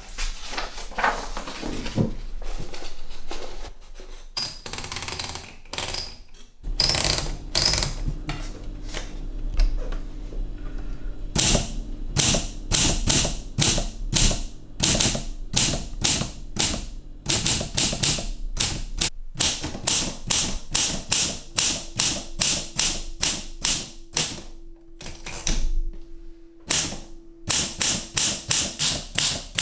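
A 1955 Olympia SM3 manual typewriter being typed on: a run of sharp key strikes, a few a second with short pauses, coming faster near the end. Before the typing starts there are several seconds of rustling and handling noise.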